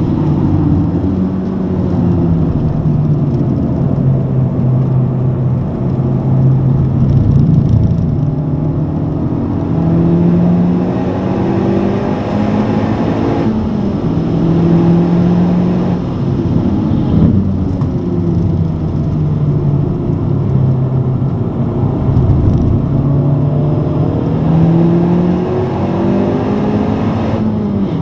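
Honda Civic Type R's four-cylinder engine heard from inside the cabin, running hard at around 5,000 rpm on track, its pitch stepping up and down again and again as it pulls and eases off.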